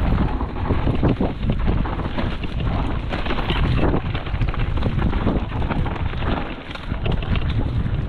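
Mountain bike ridden fast down a rough trail: dense rumble and rattle of tyres and frame over the ground, full of small knocks, with wind buffeting the microphone.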